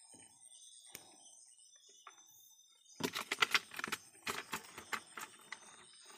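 Quick run of taps and rattles starting about three seconds in, as a freshly caught freshwater shrimp is put into a plastic basin holding the catch.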